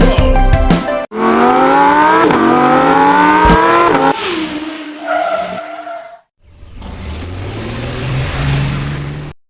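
Race car engine sound effect accelerating hard: the pitch climbs, drops back and climbs again as if shifting up through the gears, then eases off. After a brief gap, a steady noisy rumble. Music plays in the first second.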